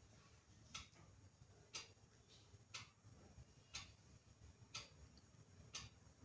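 A clock ticking faintly, evenly about once a second, six ticks in all.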